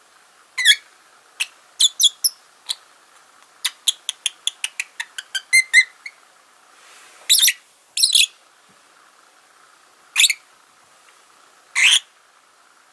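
Fischer's lovebird calling softly in its sleep. It gives a few scattered short chirps, then a quick run of about five chirps a second, then four longer calls spaced a second or two apart.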